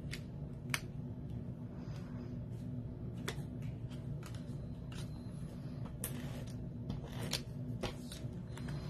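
Cardstock pieces handled on a tabletop: rustling and about half a dozen sharp little taps and clicks as paper layers are picked up, laid down and slid into place, over a steady low hum.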